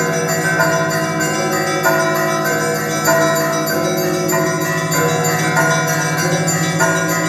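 Russian Orthodox monastery bells ringing a festive peal: smaller bells struck quickly in a repeating pattern over the steady low hum of a larger bell.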